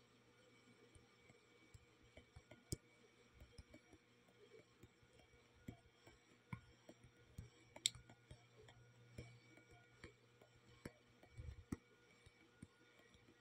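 Faint, irregular taps of a fingertip on a phone's touchscreen, a few a second, with one sharper click about eight seconds in, over near silence.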